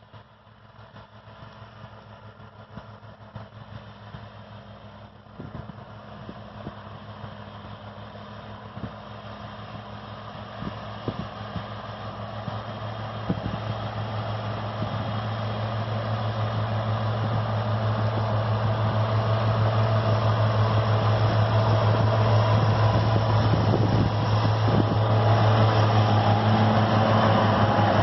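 Valtra tractor running with its Claas front and side disc mowers at work, a steady engine hum that grows steadily louder as it approaches, with occasional short ticks.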